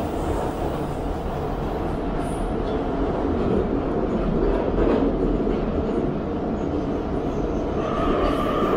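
Metro train running through a tunnel, heard from inside the car: a loud, steady rumble of wheels and running gear. About eight seconds in, a steady high whine joins it.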